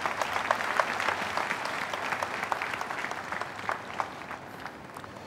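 A large congregation applauding, a dense patter of many hands clapping that gradually dies down toward the end.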